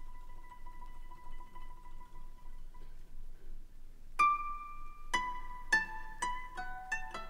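Music: a faint held tone fades away, then about four seconds in a plucked string instrument enters. Its ringing notes come about twice a second at first, then faster.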